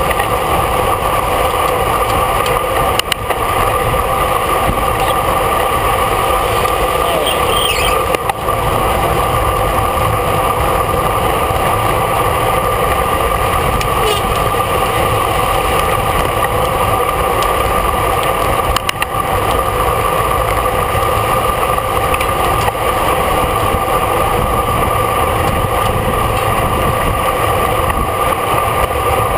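Steady wind rush and road noise on a bicycle-mounted camera riding in a race, with a few brief clicks.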